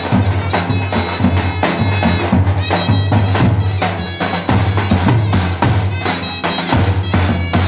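Davul and zurna playing together: the zurna's double-reed melody runs over repeated beats of the davul bass drum.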